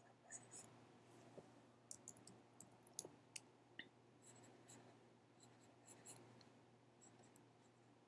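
Faint taps and light scratching of a stylus on a drawing tablet as short pen strokes are sketched, with a cluster of sharper taps in the first four seconds and softer strokes after.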